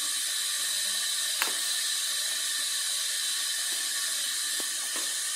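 Steady hiss with one sharp click about one and a half seconds in: a stand fan's speed push button pressed to switch on its newly fitted motor.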